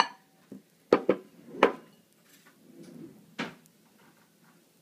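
Kitchenware clattering: three sharp knocks in quick succession about a second in and one more about three and a half seconds in.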